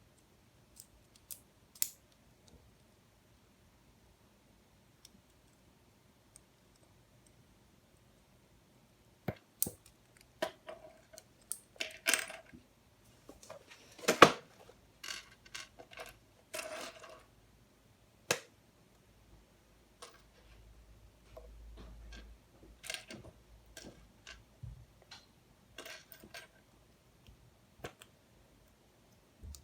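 Plastic LEGO Technic pieces clicking and clattering as they are handled and pressed together. The clicks are scattered, busiest through the middle, with the loudest snap about halfway through.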